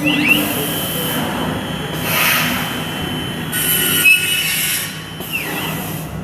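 Comec MD TOP CNC milling, drilling and mortising machine at work. A spindle whine rises right at the start and falls away near the end, with a steady high whine and four separate bursts of hissing noise in between.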